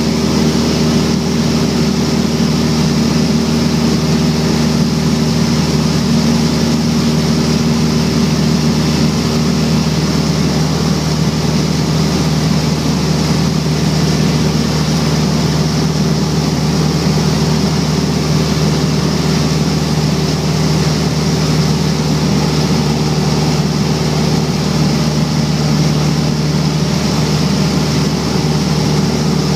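A single-engine propeller light aircraft's piston engine and propeller droning steadily, heard from inside the cabin. One of the engine's tones drops out about ten seconds in.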